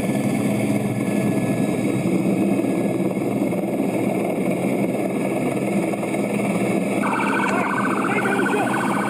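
Steady engine drone, with a police siren starting up about seven seconds in, warbling quickly.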